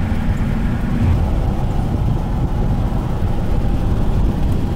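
Steady road noise inside a moving car with a window open: a loud, low rumble of tyres, engine and wind. A steady hum under it drops out about a second in.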